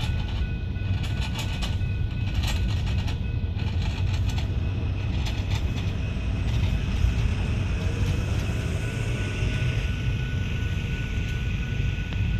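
Freight train flatcars rolling past close by: a steady low rumble of steel wheels on rail, with a run of sharp clicks in the first few seconds as wheels cross rail joints, and faint steady high-pitched tones throughout.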